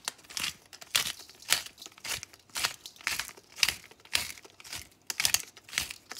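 Hand pepper mill grinding black peppercorns: a crunchy grating with each twist of the mill, repeating about twice a second.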